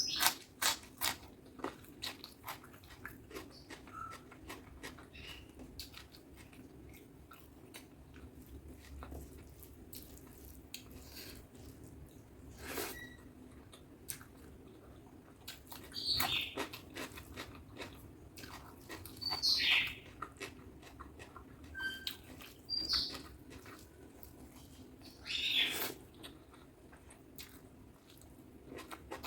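Close-miked eating of butter chicken with rice: scattered small mouth clicks, then several louder wet chewing and smacking sounds in the second half.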